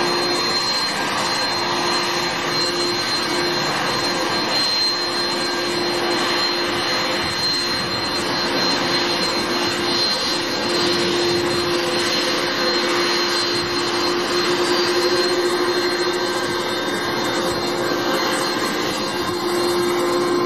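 Airbus A330 jet engines running steadily at low power as the airliner taxis, a continuous rushing hiss with a steady high whine over it.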